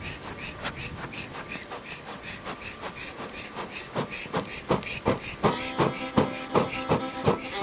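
Hand-operated air blower pumped rapidly to feed air into a campfire, giving a steady train of short scratchy strokes, about four to five a second. Background music comes in about halfway through.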